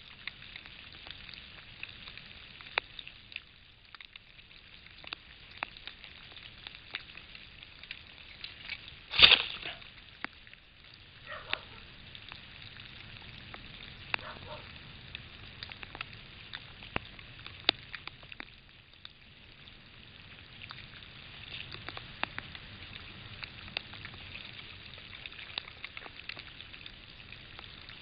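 A wooden bird table, pushed over by a European badger, lands with a single loud crash about nine seconds in. Around it, a trail camera's microphone picks up a steady faint hiss with scattered crackling clicks.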